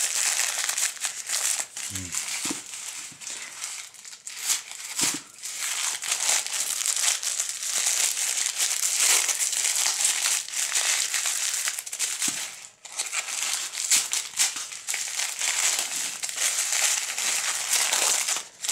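Thin white wrapping crinkling and crumpling continuously as it is pulled off a package by hand, with a short pause about two-thirds of the way through.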